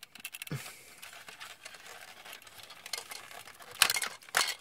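Hard plastic parts of a DX Grandbird transforming robot toy rubbing and clicking as a blaster is worked off its joint by hand, with a few sharper clicks near the end.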